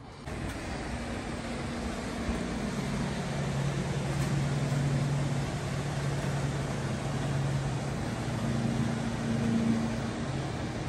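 Motorboat engine running steadily as the boat tows a wakeboarder across the lake: a low hum over a noisy wash that swells a little midway and again near the end.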